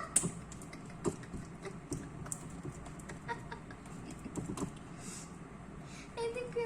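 Faint, irregular sticky clicks and smacks of homemade slime and liquid detergent being rubbed and worked between the hands. Near the end a steady pitched tone starts.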